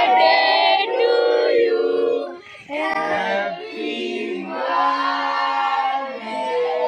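Voices singing without instruments, several at once, in long held notes, with a short break about two and a half seconds in.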